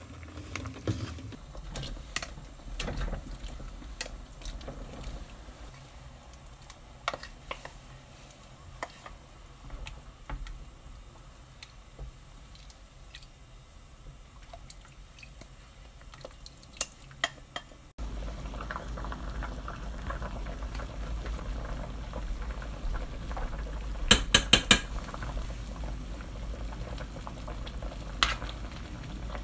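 Spicy chicken stew bubbling at a boil in a stainless steel pot, with a spoon clinking and scraping against the pot as it is stirred. The bubbling turns louder and steadier partway through, and a quick run of sharp spoon taps on the pot comes near the end.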